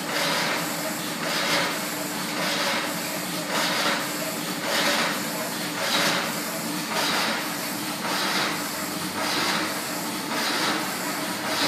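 Factory machinery noise: a steady hum under a hiss that swells and fades evenly, about once a second, like a machine running a repeating cycle.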